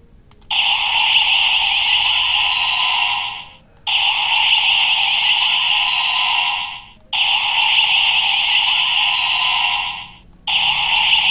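Ultraman Trigger Guts Sparklence transformation toy playing an electronic sound effect through its small tinny speaker. The sound repeats in blocks of about three seconds with brief breaks between them.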